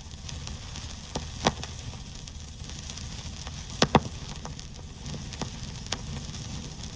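Vinyl record surface noise: a steady hiss and crackle with scattered sharp pops, the loudest a single pop about a second and a half in and a quick pair near the middle.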